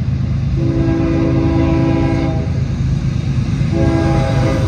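CSX diesel freight locomotive sounding its multi-chime air horn over the low rumble of its engines: a long blast, then a short blast near the end, part of the long-long-short-long pattern sounded for a road crossing.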